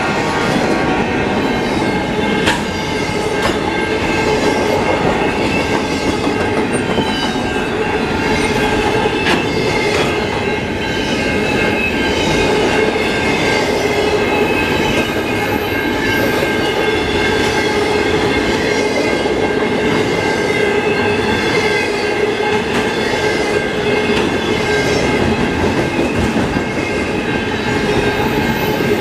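Freight train's double-stack container well cars rolling past: a loud, steady rumble of steel wheels on rail, with evenly spaced clicks and several steady high ringing tones over it.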